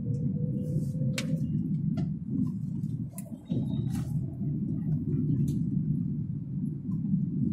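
Car's engine and tyres rumbling steadily, heard from inside the cabin while driving slowly, with a few light clicks or rattles.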